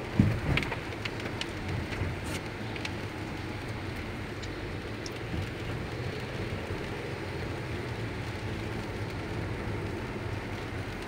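Steady rain and wet-road noise heard from inside a car driving in heavy rain. There is a sharp knock about a quarter second in, then a few light ticks over the next couple of seconds.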